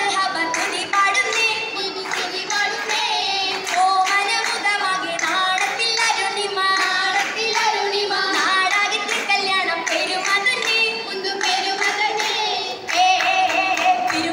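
Oppana: young female voices singing a Mappila song, with the dancers' rhythmic hand claps in time with it.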